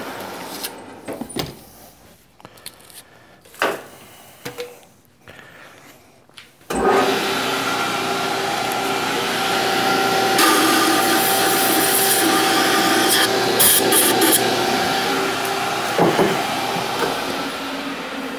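Grizzly G0602 metal lathe stopped, with a few light clicks and knocks of handling. About seven seconds in the spindle starts abruptly and runs steadily with a gear whine, while emery cloth on a rod rubs inside the bore of the spinning part to polish it out to size.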